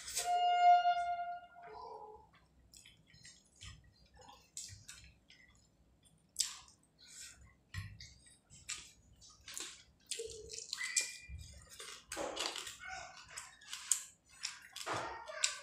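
Close-miked chewing and wet, smacking mouth sounds of someone eating rice and prawn curry by hand, with light squelches of fingers mixing rice on a plate. A brief high-pitched tone with overtones rings out from just after the start to about a second and a half in.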